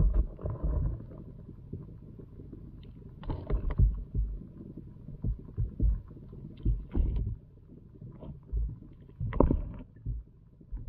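Irregular muffled thumps and knocks heard through water, over a low steady rumble. The sharpest knocks come about three and a half seconds in and again about nine and a half seconds in.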